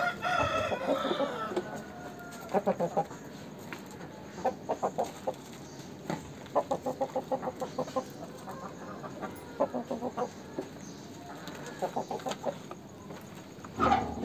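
Aseel chickens clucking in short rapid runs, about five bursts of quick repeated notes, after a longer call at the very start.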